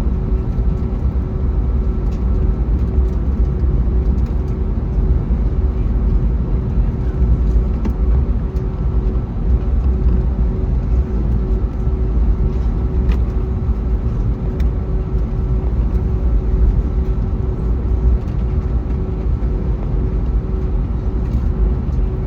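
Cabin noise inside an Airbus A321neo with its Pratt & Whitney geared turbofan engines running: a steady drone with a heavy low rumble and a steady hum, holding even with no spool-up or change.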